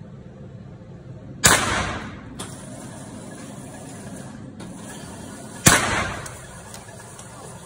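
Two handgun shots about four seconds apart, each ringing briefly off the hard walls of an indoor range.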